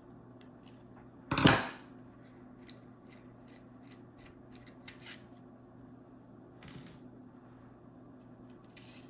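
A brass Zippo lighter being handled: one loud metal clack about a second and a half in, then scattered light clicks and two brief scrapes.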